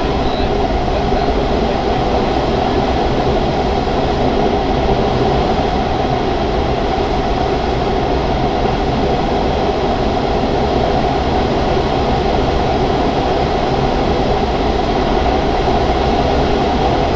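Steady rush of air over the canopy and fuselage of a Grob 103 two-seat glider in unpowered flight: an even, constant wind noise.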